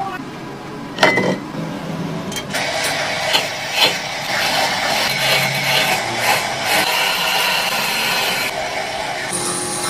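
Workshop tool noise: a sharp knock about a second in, then several seconds of rough, grating power-tool work with scattered clicks, easing off near the end.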